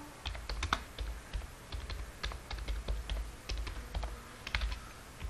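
Typing on a computer keyboard: irregular key clicks, a few a second.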